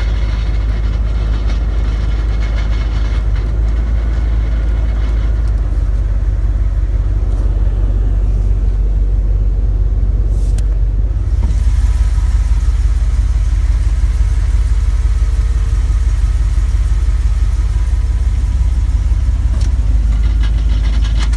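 2001 Dodge Ram 1500's 5.2-litre Magnum V8 running steadily with a knocking noise, getting louder about halfway through.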